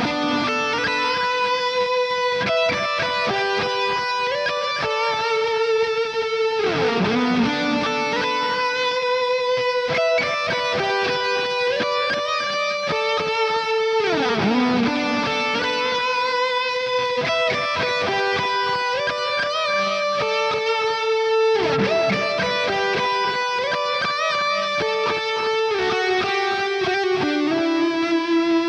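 Electric guitar played through a Nembrini Audio amp-simulator plugin: a melodic line of sustained, overtone-rich notes. A sweeping downward glide recurs about every seven seconds.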